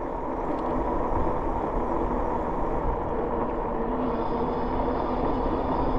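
Riding noise from a Rad Rover fat-tyre e-bike cruising on asphalt: wind rushing over the microphone and tyre rumble, steady throughout, with a faint steady hum underneath.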